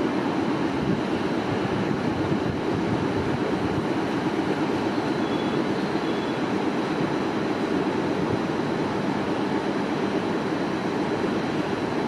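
E721 series electric train standing at the platform, its onboard equipment running with a steady, even rushing hum.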